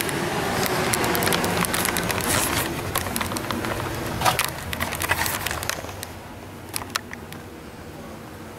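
Footsteps going down wooden stairs: irregular knocks and clicks over the rustle of a handheld camera, quieter and sparser for the last few seconds.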